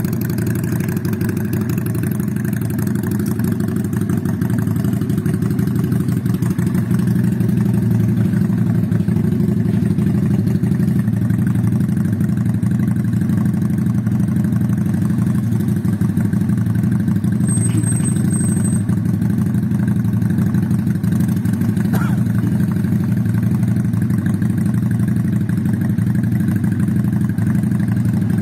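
WMOTO V16 V-twin cruiser engine running at a steady idle through a newly fitted custom aftermarket exhaust, loud and even throughout.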